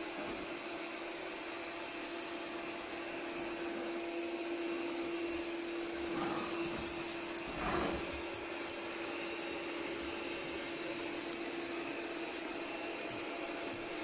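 Wet-dry floor washer running steadily with a motor hum and whine, scrubbing the floor. A brief louder swell comes about eight seconds in, with scattered faint clicks in the second half.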